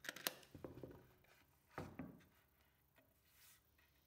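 Handling noise from a resin-inlaid walnut slab and a quartz clock movement on a workbench: a few sharp clicks at the start, then a couple of soft knocks about two seconds in, otherwise near silence.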